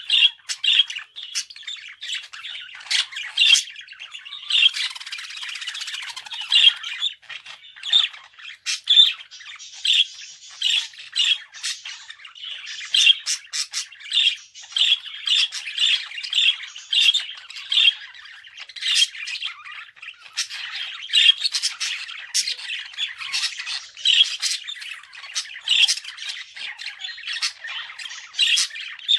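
Budgerigar warbling and chattering without a break, with many short, sharp chirps and squawks.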